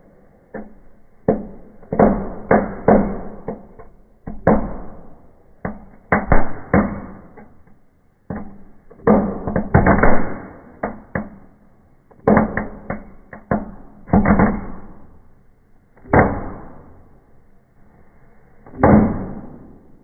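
Small fireworks going off inside a fireplace: an irregular run of sharp bangs and bursts, each trailing off in a short hissing whoosh, coming in quick clusters and then only a few more, spaced out, near the end.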